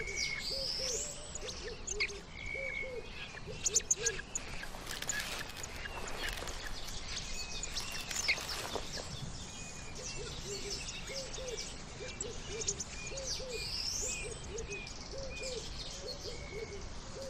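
Forest bird calls: a low hooting call repeated in quick short runs, with higher short whistles and chirps. There are a couple of fast rising whistles, one near the start and one about fourteen seconds in.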